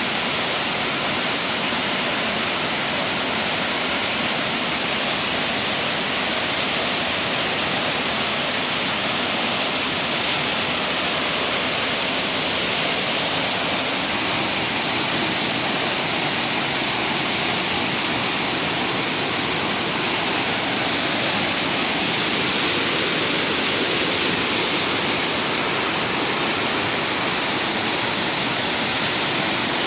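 Steady rush of falling water, as from a waterfall, an unbroken hiss with no change.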